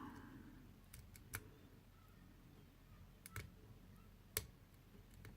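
Faint, scattered metallic clicks from picking an old mortise lock with a tension tool and a hook pick, about half a dozen sharp ticks over a low hush. The clicks from inside the lock are the sign that the pins are setting and the lock is on its way to opening.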